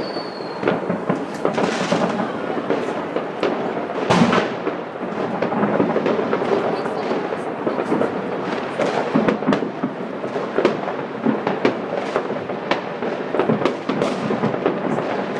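Many fireworks and firecrackers going off at once: a dense, unbroken barrage of overlapping bangs and crackling, with one especially loud bang about four seconds in. A short whistle falling in pitch is heard right at the start.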